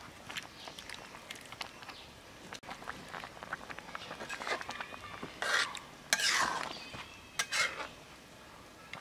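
Metal spatula stirring taro-stolon curry in a large iron karahi: a run of light taps and scrapes against the pan, with three louder scrapes in the second half.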